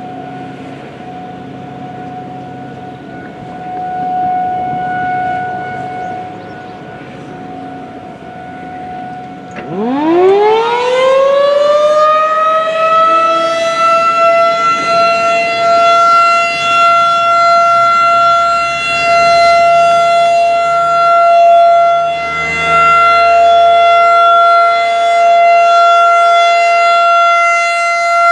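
A distant outdoor warning siren holds a steady tone; about ten seconds in, a nearby Federal Signal 2001-DC rotating siren winds up, its pitch rising quickly over a few seconds and levelling off into a loud, steady alert tone that swells and dips as the siren turns.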